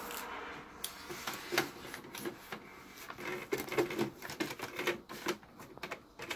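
Paper sheets rustling and plastic parts of a compact laser printer's input tray and paper guides clicking irregularly as paper is loaded into the tray.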